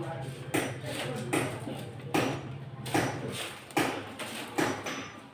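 Sharp knocks or taps repeating evenly, about one every 0.8 seconds, over a steady low hum that stops a little past halfway.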